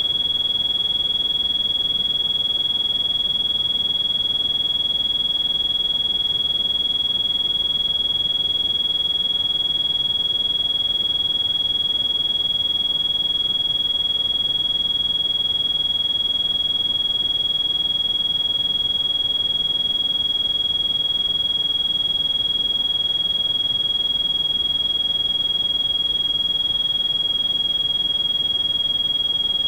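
A steady, high-pitched electronic pure tone, a synthesized tinnitus-masking beep, held at one pitch and constant loudness over a faint hiss of pink noise.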